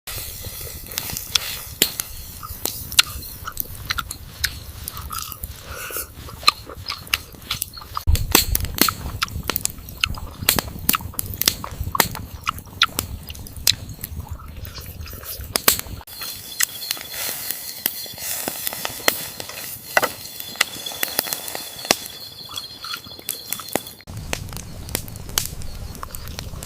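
Wood fire crackling and popping, with many sharp irregular snaps. The background shifts abruptly about every eight seconds, and in the middle stretch a steady high whine runs underneath.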